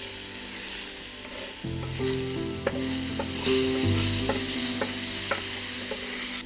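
Diced meat sizzling in a hot iron frying pan as a wooden spatula stirs it, with light scrapes and knocks of the spatula against the pan about twice a second from about two seconds in.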